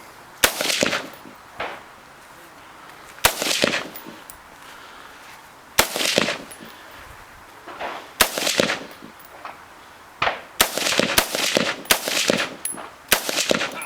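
Rifle shots in an IPSC rifle stage: four single shots about two and a half seconds apart, then a quicker string of about six shots near the end, each followed by a short echo.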